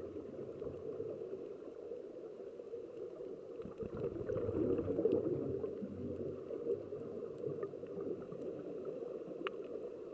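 Scuba regulator exhaust bubbles heard underwater, a low bubbling that swells about four to five seconds in, with a few faint clicks.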